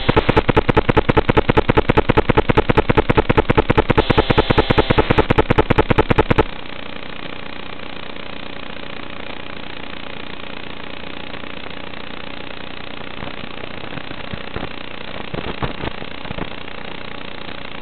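Electrical buzz from the SmartAudio line bleeding into an analog FPV video transmitter's audio channel: a loud, fast, regular pulsing buzz that stops abruptly about six and a half seconds in, leaving a steady static hiss with a few faint crackles. The uploader blames the noise on the SmartAudio wire, which he says needs to be cut.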